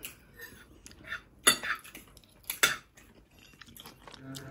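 Cutlery clinking against plates as people eat, a handful of separate sharp clinks about a second apart.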